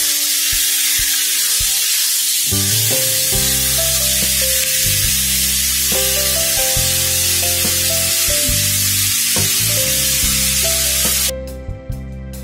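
Chicken pieces and sliced onion sizzling in a hot wok as they are stir-fried with a spatula, a steady loud hiss that cuts off suddenly near the end, under background music.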